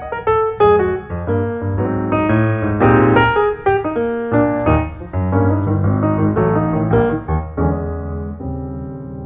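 Background piano music: a melody of struck notes over bass notes, settling into a held chord near the end that slowly fades.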